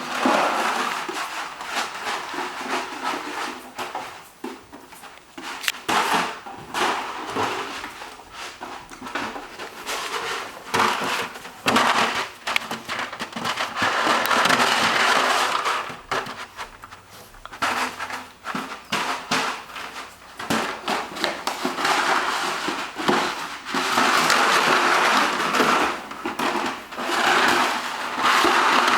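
Labrador Retriever puppy chewing and shaking a milk carton: irregular crackling and crunching of the carton, coming in dense stretches with quieter gaps between.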